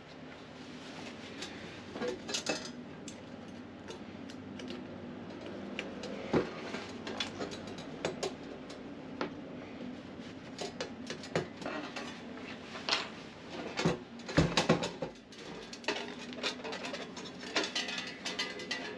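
Pieces of 2.3 mm steel plate clinking and knocking against each other as they are handled, with irregular sharp metallic knocks and a louder cluster of clanks about two-thirds of the way through.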